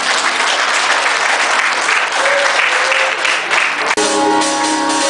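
Church congregation applauding, then about four seconds in it cuts suddenly to church band music starting up, with steady held notes.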